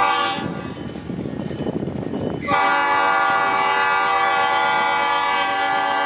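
Multi-chime air horn of an Escanaba & Lake Superior SD40-2 diesel locomotive sounding for a grade crossing: a short note at the very start, the locomotives' diesel engines rumbling, then one long, steady blast from about two and a half seconds in.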